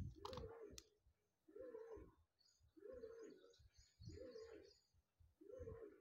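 Samsung top-load washing machine agitating during its rinse: the digital inverter motor swings the pulsator back and forth, making a faint whine that rises and falls five times, a little over a second apart, with water and clothes sloshing in the drum.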